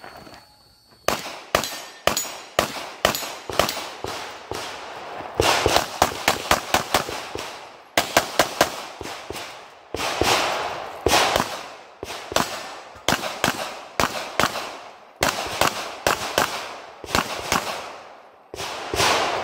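Rapid pistol fire from a Sig Sauer P320 during a practical-shooting stage run: quick pairs and fast strings of shots with brief pauses between groups as the shooter moves between positions.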